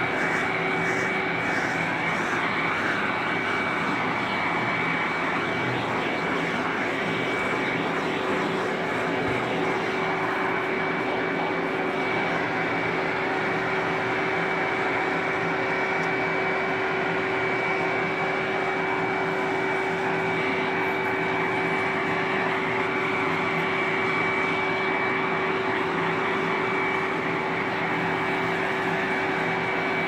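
Vacuum cleaner running steadily: a constant motor whine over rushing air.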